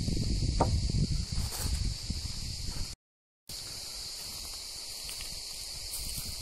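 Cicadas chorusing, a steady high-pitched buzz. A low rumble sits under it for the first three seconds, and the sound cuts out for about half a second at an edit before the buzz carries on.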